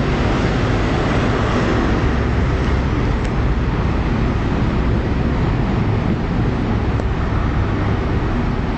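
InterCity 125 high-speed train departing: the last carriages roll past, then the rear Class 43 diesel power car passes and pulls away. The engine and wheels make a steady low rumble.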